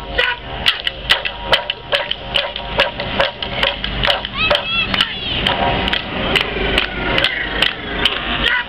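Clapsticks knocking out a steady beat, about three clicks a second, for an Aboriginal shake-a-leg dance, with voices singing and calling out over it.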